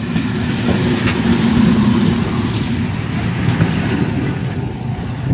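A train rolling slowly past at close range, a steady low rumble of wheels on rail and running gear, with a locomotive passing close by near the end.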